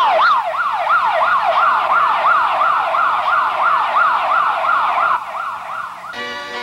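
Police car siren on a fast yelp, its pitch jumping up and sliding down about three times a second. It drops a little in loudness near the end and then cuts off.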